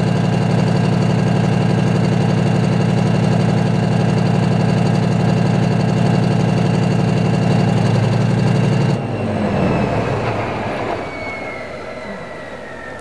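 Type 90 tank's V10 two-stroke turbodiesel engine idling steadily, then shut off about nine seconds in: the engine note drops away and falls in pitch as it runs down. A high whine follows, slowly falling in pitch as it winds down.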